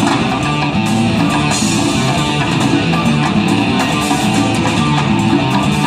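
Live rock band playing amplified music, with electric guitar prominent over bass and drums, recorded from the audience.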